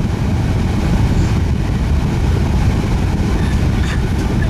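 A movie soundtrack played loud through a car audio system, its two Kicker CVR 10-inch subwoofers putting out a heavy, steady bass rumble that fills the cabin.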